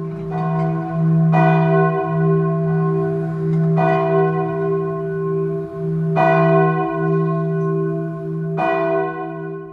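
Church bell tolling: four strong strokes about two and a half seconds apart, each ringing on over a steady low hum.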